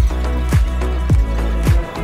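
Background music with a kick drum on a steady beat, a little under two beats a second, over a held bass line.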